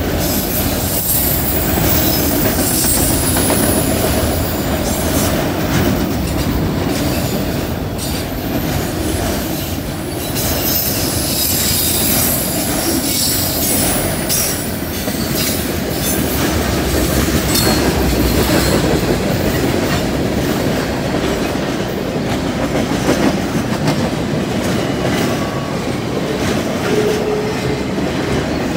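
Norfolk Southern freight train rolling past at speed: a steady loud rumble of steel wheels on rail, with high-pitched wheel squeal coming and going as the cars take the curve through the crossing, thinning out later on.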